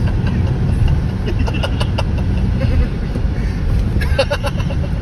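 Steady low road and wind rumble inside the cabin of a moving Tesla Model S Plaid, with a few light clicks and short high-pitched sounds from the occupants, the clearest about four seconds in.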